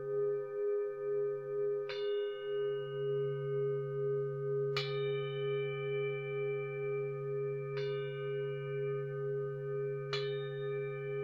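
Singing bowls ringing as meditation music: a steady, wavering low hum underneath, with a fresh bell-like strike about every two to three seconds, four strikes in all, each ringing out slowly.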